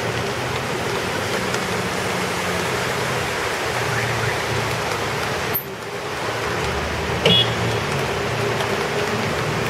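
Steady noise of a rainstorm mixed with road traffic, with cars passing over a waterlogged street. A short, sharp, high-pitched sound stands out about three-quarters of the way through.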